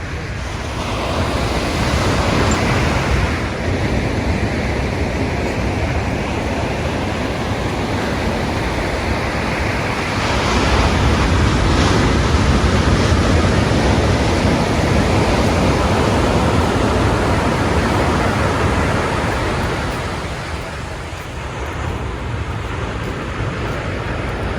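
Ocean surf: waves breaking and washing in a continuous rushing noise that swells about a second in and again at around ten seconds, then eases off near the end.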